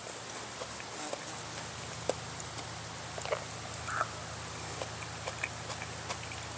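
A person chewing and eating a piece of raw tomato close to a clip-on mic: soft scattered mouth clicks and small smacks over a faint steady low hum.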